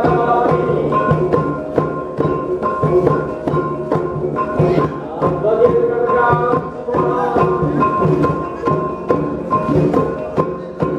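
Dayak percussion music: drums struck in a fast, steady beat with ringing pitched notes sounding over them.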